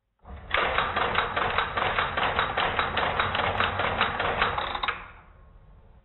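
Strowger step-by-step switch gear clicking in a fast, even train, about five clicks a second, for roughly four and a half seconds, then dying away. It is the A relay and the first selector's vertical magnet, pawl and ratchet stepping the shaft up one level per dial pulse as a rotary dial returns from 0, which sends ten pulses.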